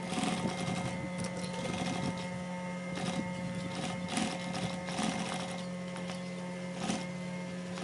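Industrial sewing machine stitching a binding strip onto the edge of quilted vinyl: a steady motor hum with bursts of needle clatter about once a second.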